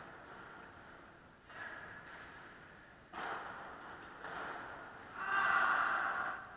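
Sounds of padel play echoing in an indoor court hall: four short bursts, the loudest and longest about five seconds in.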